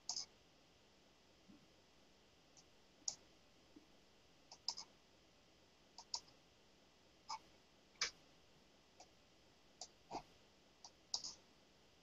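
About a dozen faint, sharp clicks at irregular intervals, some in quick pairs: a computer mouse being clicked.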